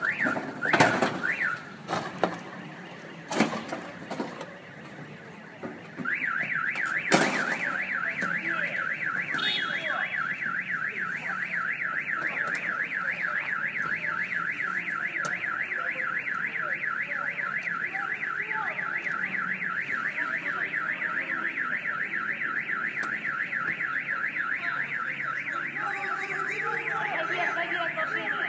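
A car alarm sounding a fast warbling siren, about four rises and falls a second, starting about six seconds in and going on steadily. Before it, a few sharp knocks.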